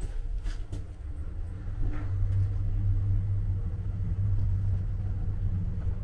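Low, steady rumble of a Schindler lift car travelling downward, heard from inside the car, growing louder about two seconds in.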